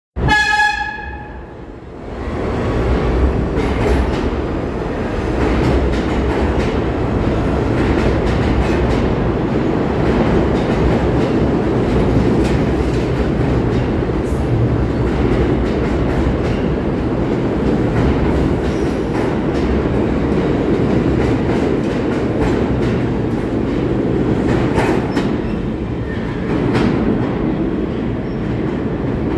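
A New York City subway train gives a short horn note, then runs through the station close by at speed without stopping. The wheels and cars make a steady, loud rumble with rapid clicking over the rail joints.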